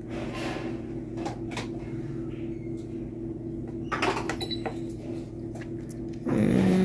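Fingers pressing the buttons on a TLAC electric pressure cooker's control panel: a few plastic clicks, with a short high electronic beep about four seconds in, over a steady low hum. A louder steady low tone starts near the end.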